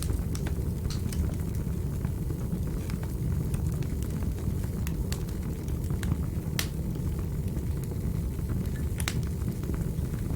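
Wood fire burning in a fireplace: a steady low rumble of the flames with scattered sharp crackles and pops, a couple of louder pops about six and a half and nine seconds in.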